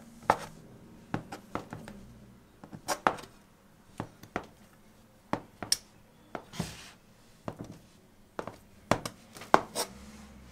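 Metal bench scraper chopping down through a roll of soft dough and knocking on a wooden board: a run of sharp, uneven taps, with a short scrape about six and a half seconds in.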